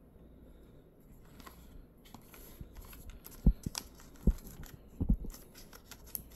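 Paperboard retail box being opened by hand: a pull tab torn open and the end flap worked loose. Several sharp clicks and knocks of cardboard handling come in the second half.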